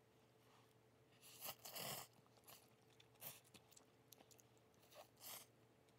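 Blowing on a chopstick-load of hot instant ramen noodles to cool them: a few short breathy puffs, the longest about a second in and another near the end, with a few faint ticks between.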